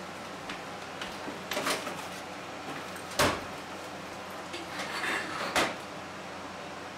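Plastic cling wrap being pulled from its box and handled over a baking pan: short rustles and crinkles with a few sharp snaps or clicks, the loudest about three seconds in.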